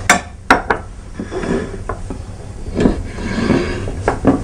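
Plates and a cutting board being set down and slid across a wooden countertop. A few sharp knocks in the first second and another near the end, with rubbing and scraping between.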